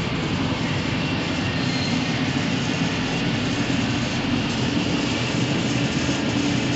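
DoAll Model 60-3 deep-throat vertical contour bandsaw running steadily, an even mechanical hum and rattle from its motor and blade drive.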